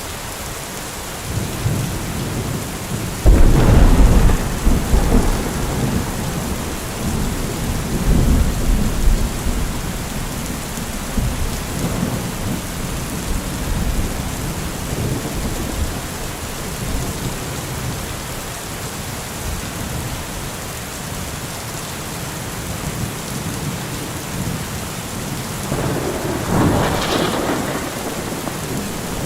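Steady heavy rain with thunder: a sharp crack about three seconds in rolls into a low rumble lasting several seconds, and a second, fainter roll of thunder comes near the end.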